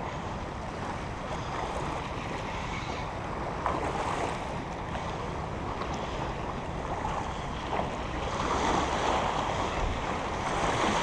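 Small waves washing against a rocky shoreline, with wind buffeting the microphone; the wash swells louder about eight seconds in.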